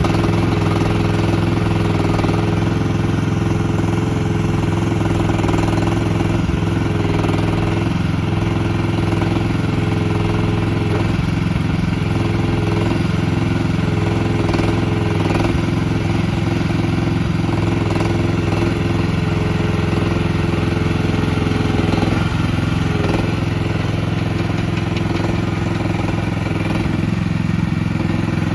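Mini-excavator engine running steadily at a constant speed, with only a slight change in its note about two-thirds of the way through.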